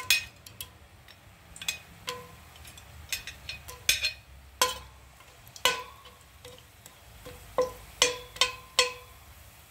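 Metal spoon and hard whole spices clinking against a stainless steel pot: about a dozen sharp, irregular clinks, each with a short metallic ring, as the spices are dropped into oil and stirred.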